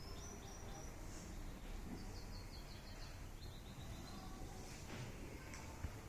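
Small birds chirping in quick series of short high notes, several series at slightly different pitches, over a steady low background hum of outdoor noise.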